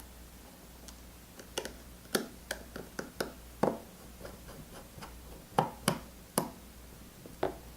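Small, sharp clicks and taps at irregular intervals as tiny screws are handled and driven with a precision screwdriver in an iPhone 7 Plus's internal metal plates.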